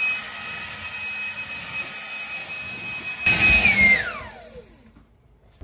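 A motor-driven machine whining at a steady high pitch, louder for a moment about three seconds in, then winding down with a falling pitch and stopping.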